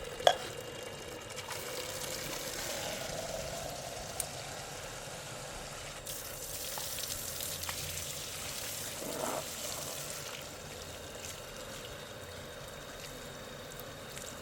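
Water pouring and trickling steadily while something is being wetted down, with one sharp knock just after the start.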